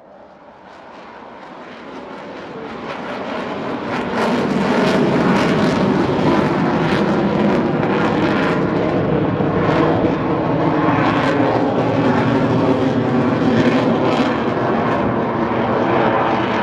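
Engine noise of a display aircraft passing, growing louder over the first four seconds as it approaches, then holding loud and steady.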